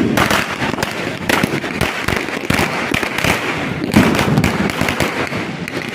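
Firecrackers going off in a rapid, dense crackle of overlapping sharp bangs, with a louder bang about four seconds in.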